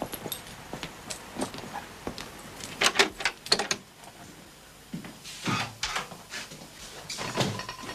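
Someone opening and coming through a glass-paned interior door, with footsteps. A quick cluster of sharp clicks and rattles comes about three seconds in, then further knocks and the latch of the door handle near the end.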